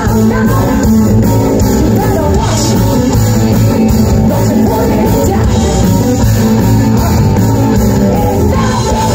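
Live rock band playing loudly through a PA: electric guitars, bass, drums and keyboard with a woman singing lead.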